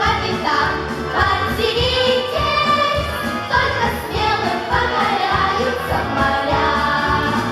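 A vocal group singing a song in unison with instrumental accompaniment that keeps a steady beat.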